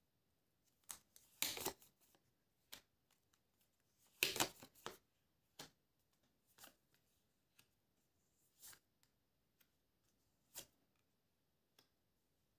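Tarot cards being shuffled and handled: scattered soft rustles and snaps of card stock, the two loudest flurries about one and a half and four seconds in, then sparser single flicks.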